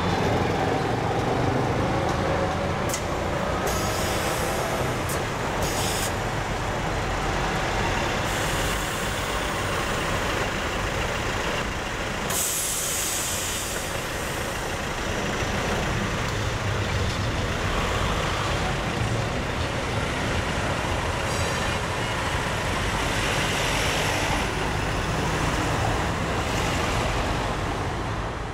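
Lisbon Carris trams running along the street rails amid city traffic, with a few sharp clicks and knocks early on and a loud hiss lasting about a second and a half, some twelve seconds in.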